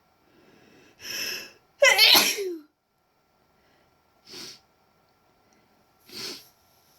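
A young woman's induced sneeze: a breathy build-up of in-breaths about a second in, then one loud voiced sneeze around two seconds in whose pitch falls away at the end. Two short breaths follow, the second near the end.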